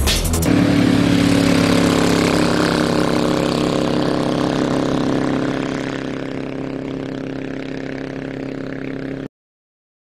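Hovercraft engine and thrust fan running at a steady speed, a steady hum of fixed pitch that slowly fades over the second half and then cuts off abruptly near the end.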